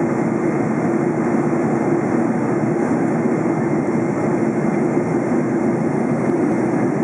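Steady cabin noise inside a Boeing 747-400 in flight: an even rush of airflow and its Rolls-Royce RB211 engines heard through the fuselage from a window seat near the wing, deepest and strongest in the low range.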